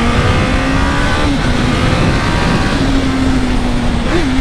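Honda CB1000R's inline-four engine pulling hard under full acceleration. Its note climbs, drops at an upshift about a second in, then carries on, over heavy wind noise on the microphone.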